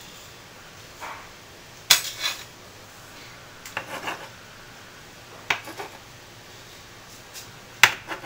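A metal slotted spatula clattering and scraping against a small nonstick frying pan while turning a fried egg, in about five short strokes, the sharpest about two seconds in and near the end.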